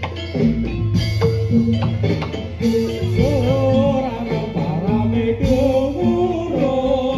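Live Javanese gamelan music accompanying a jaran kepang dance, with drums and pitched percussion playing a steady repeating pattern. A singing voice comes in about three seconds in.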